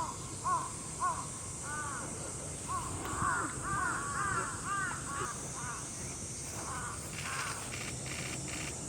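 Crows cawing, a run of short calls that crowd together and overlap in the middle, as from several birds, over a steady high-pitched hiss.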